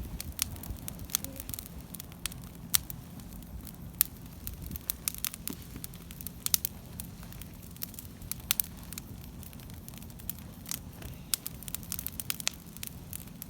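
Wood bonfire crackling, with irregular sharp pops and snaps scattered through a low background rush.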